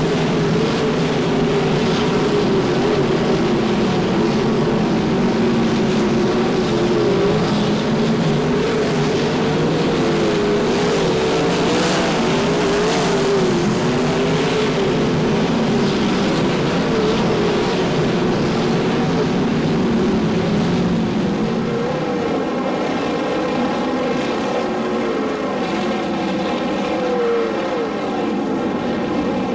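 Several sprintcars' V8 engines running at racing speed on a dirt oval, their pitch rising and falling as the cars power through the turns and pass by.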